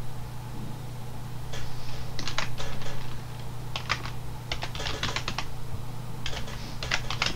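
Computer keyboard typing in short runs of keystrokes with pauses between them, over a steady low hum.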